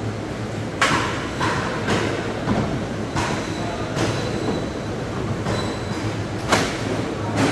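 Sharp knocks at uneven intervals of a knife or cleaver chopping through stingray on a cutting board, the loudest about a second in and near the end, over a steady low hum.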